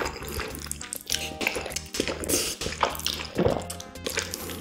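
Wet slurping and chewing of sauce-coated jajangmyeon noodles, in repeated short sucks, over steady background music.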